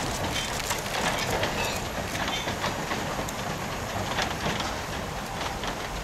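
Narrow-gauge steam train rolling past, its wagon wheels clicking and clacking irregularly on the rails as the wagons cross a small bridge.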